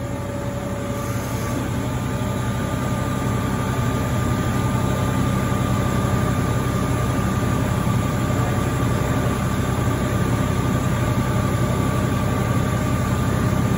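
Hyundai WIA F500 5-axis vertical machining center running: a steady machine hum with a thin steady whine over it, growing slightly louder over the first few seconds.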